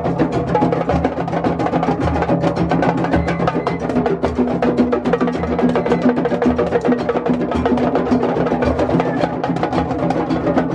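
Drum circle of djembes, congas and timbales played together by hand in a fast, steady rhythm, a dense run of sharp slaps and deeper bass tones.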